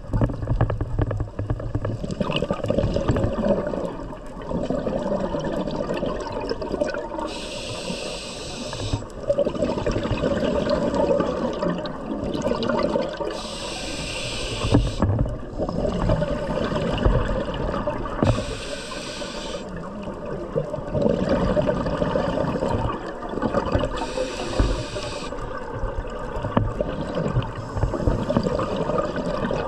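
A scuba diver breathing through a regulator underwater, here on Nitrox. Each inhale is a hiss lasting about a second and a half, coming roughly every five to six seconds. In between, the exhaled bubbles leave the regulator's exhaust with a continuous bubbling rumble.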